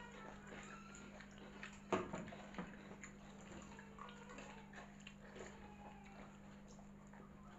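Hands squishing and stirring water-soaked rice (pakhala) in steel bowls, with faint wet sloshing and scattered small clicks. A sharp knock about two seconds in is the loudest sound, over a steady low hum.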